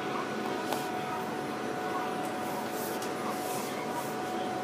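Steady hiss of underground metro station ambience, with a faint steady tone running through it.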